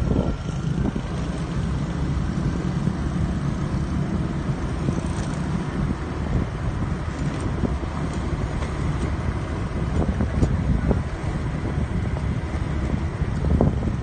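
Wind buffeting the microphone over the steady low drone of a motorbike engine, recorded from a moving motorbike, with occasional brief gusts.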